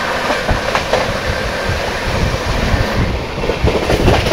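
Indian passenger express train running at speed, heard from its open coach door: a loud steady rumble and rush with wheels clacking over rail joints. A train on the adjacent track passes close alongside.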